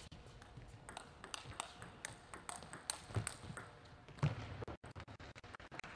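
Table tennis rally: the plastic ball clicking sharply off the rackets and the table in an irregular series of quick hits.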